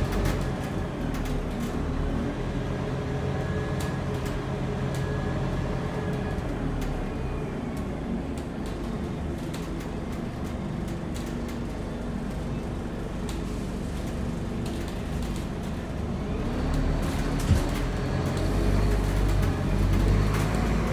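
Scania N230UD bus's nine-litre five-cylinder diesel engine idling steadily, heard from inside the passenger saloon. There is a single knock about seventeen seconds in, and near the end the engine note rises and grows louder.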